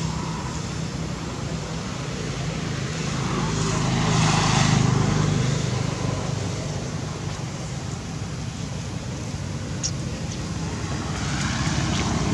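A motor vehicle engine running steadily with a low hum, getting louder about four to five seconds in and again near the end, as a vehicle passing by.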